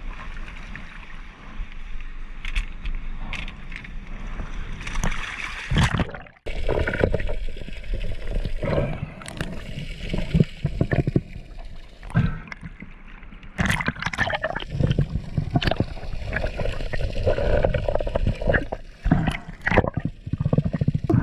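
Water sloshing and gurgling around a camera used underwater while a freediver swims, with irregular sharp splashes. The sound drops out briefly about six seconds in.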